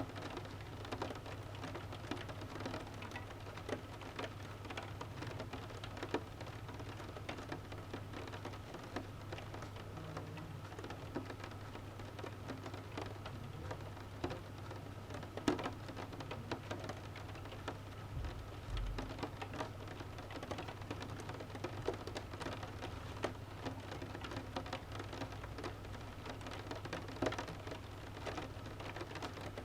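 Rain on a window pane: a steady patter with many single drops tapping the glass.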